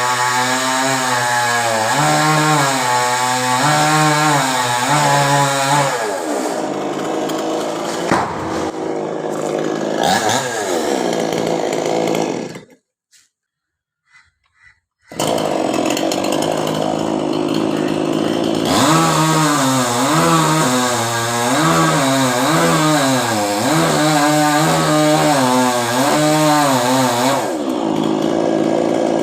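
Chainsaw cutting a coconut tree trunk, its engine pitch rising and falling under load. It drops out for about two seconds near the middle, then runs and cuts again.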